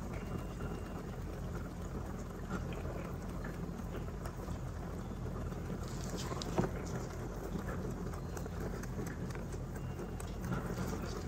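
Young rabbits chewing and nibbling dry hay close to the microphone: a run of small crackly crunches and rustles over a steady low hum. It gets busier about halfway through, with one sharper crack just after.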